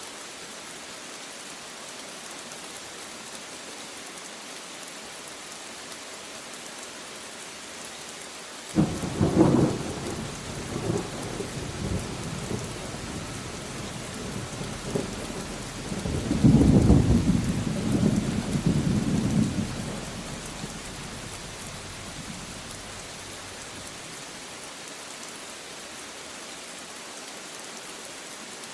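Steady rain with a sudden thunderclap about a third of the way in, rumbling on and building to a second, louder peal before dying away to rain alone.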